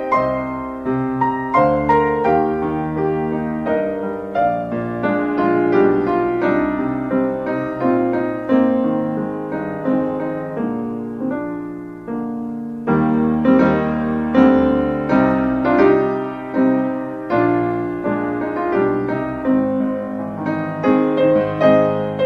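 Piano playing a slow hymn tune, without singing. Notes are struck and allowed to ring away. There is a short lull about twelve seconds in before the next phrase begins.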